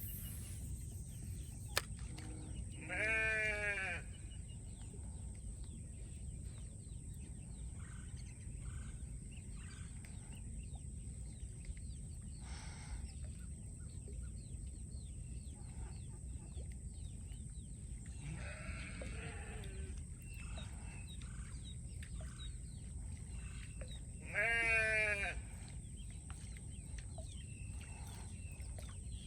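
A farm animal calling twice, each call a loud, quavering cry of about a second that falls in pitch, with a fainter call in between. Under it a steady high-pitched tone and quiet outdoor background.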